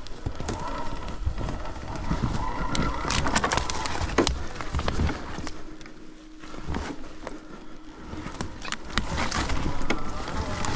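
Stark Varg electric dirt bike ridden slowly off-road: a faint motor whine under repeated knocks and clatter from the bike rolling over rough, frozen ground, easing off briefly about six seconds in.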